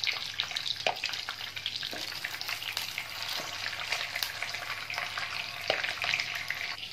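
Mutton koftas sizzling in hot oil in a frying pan, with a few knocks of a slotted spoon against the pan as the koftas are lifted out.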